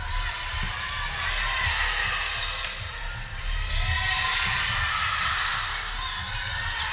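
Volleyball rally in an echoing gymnasium: players and spectators calling and shouting over one another, with the irregular thud of the ball being played and feet on the hardwood court.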